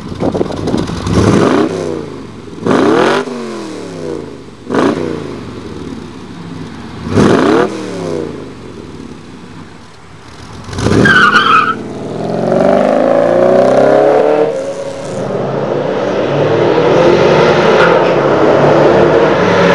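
1979 Corvette C3 L82 350 V8 through a Magnaflow stainless steel cat-back exhaust, blipped sharply four times at a standstill, each rev rising and dropping back to idle. About eleven seconds in there is a short sharp burst, then the engine runs under load with its pitch climbing, easing off and climbing again as the car accelerates.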